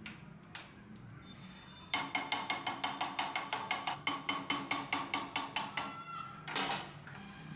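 Hammer tapping rapidly on the pivot bolt of rusty steel pruning shears clamped in a bench vise, about five blows a second for some four seconds, each with a short metallic ring. One more knock follows about half a second after the run stops.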